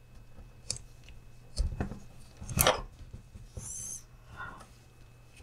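Nitrile-gloved hands handling small plastic parts of a 1/18-scale RC crawler chassis and drive shaft: scattered clicks and rubbing, a thump about a second and a half in, and a louder knock a second later, followed by a short high rattling rub.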